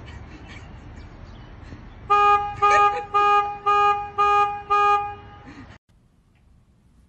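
Car horn honking six short times in quick succession, about two a second, over low street noise. The sound then cuts off abruptly to the near silence of a quiet room.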